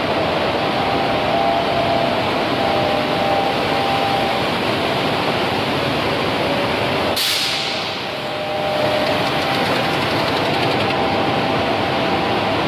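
Turanlar T-PE 433 beam panel saw and its workshop dust extraction running with a steady mechanical hum that carries a faint steady tone. About seven seconds in there is a short, sharp hiss.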